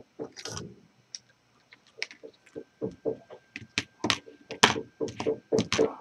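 Irregular clicks and knocks of metal hand tools, flush cutters and a wire stripper, being handled, snipped and set down on a plastic cutting mat. The clicks come thickest in the last few seconds.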